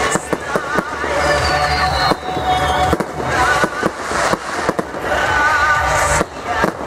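Aerial fireworks bursting in quick succession, a string of sharp bangs and crackles, with music playing over them.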